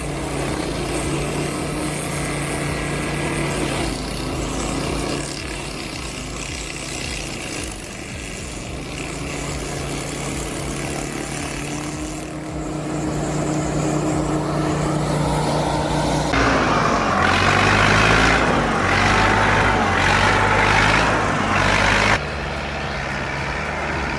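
Heavy machinery engines running under load, across several clips that change abruptly about 5, 16 and 22 seconds in. From about 16 seconds in, the engine pitch rises and falls.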